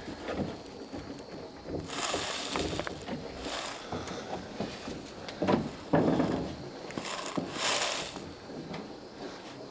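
Handling sounds as a bar clamp is set on a steamed oak frame pressed against the hull planking: a few knocks and several short scraping rustles.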